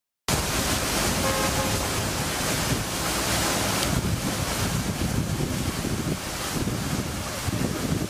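Wind buffeting the camera's microphone: a steady, loud low rush with hiss above it. A short pitched sound is heard briefly about a second in.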